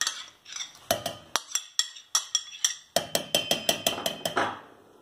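Metal spoon clicking and tapping against the curd tub and the steel mixer-grinder jar as thick curd is spooned in. The taps come singly at first, then as a quick run about three seconds in, followed by a brief scrape.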